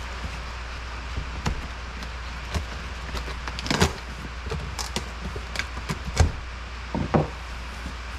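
Cardboard shipping box being slit open with a knife and its flaps pulled back: scattered scrapes, taps and crackles of cardboard and packing tape. The loudest come about four seconds in, around six seconds, and twice just after seven seconds, over a steady low hum.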